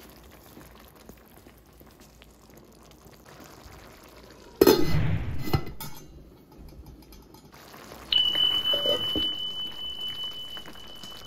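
Stew simmering quietly in a stainless steel pan. About halfway through comes a loud metal clatter of cookware, like the lid being set on the pan. Near the end a single high ringing tone starts suddenly and fades away.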